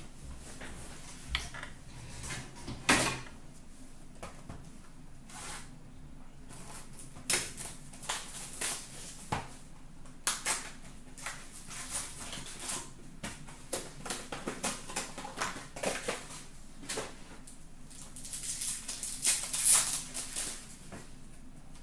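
Hands opening a cardboard hobby box of trading cards and then tearing open a shiny card pack: scattered taps, clicks and rustles, with the loudest crinkling of the pack wrapper near the end.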